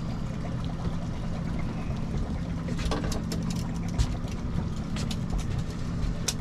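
Boat motor running steadily, with a few sharp clicks and knocks about three to four seconds in.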